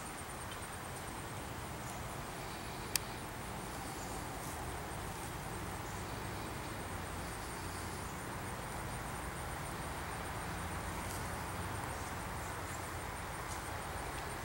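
Steady outdoor background noise, a low rumble and hiss, with a faint high steady tone above it. There is one sharp, short click or pop about three seconds in.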